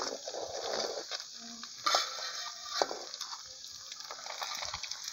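Fish pieces deep-frying in hot oil in a wide steel pan over a campfire, a steady high sizzle. Two sharp clicks about two and three seconds in.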